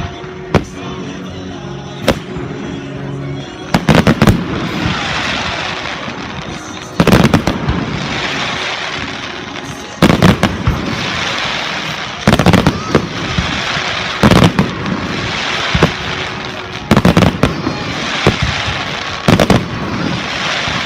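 Fireworks display: aerial shells bursting with sharp bangs every two to three seconds, each followed by a few seconds of crackling, with music playing underneath.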